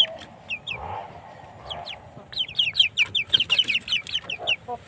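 Young chickens peeping: runs of short, high, falling peeps, several a second, thickest in the second half.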